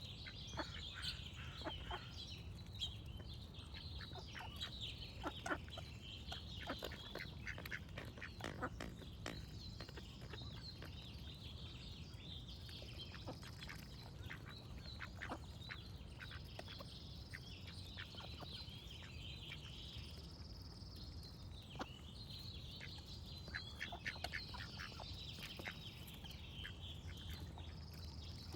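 Ducks quacking now and then among small birds chirping and singing, over a low steady rumble.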